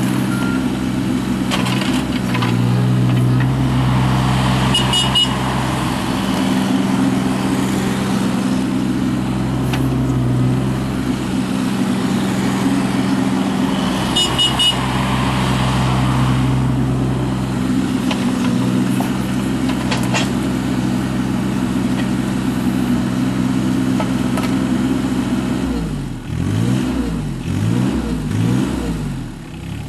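John Deere 17D mini excavator's diesel engine running under working load, its note shifting as the hydraulics are worked. Twice there is a brief high pulsed tone. Near the end the engine speed swings up and down several times in quick succession.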